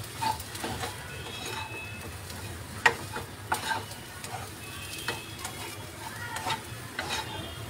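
A spatula scraping and tapping in a non-stick frying pan as chopped capsicum, onion and shredded chicken are sautéed over a low flame, with a faint sizzle underneath. The strokes come at irregular intervals, the sharpest about three seconds in.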